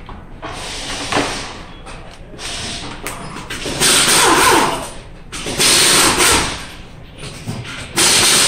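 Air impact wrench running in three bursts of about a second each, spinning lug nuts during a wheel change, with a hiss of air.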